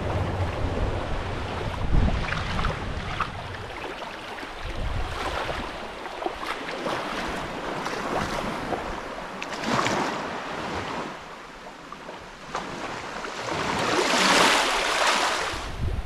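Sea waves washing and breaking, swelling loudest about ten seconds in and again near the end, with wind gusting on the microphone in the first few seconds.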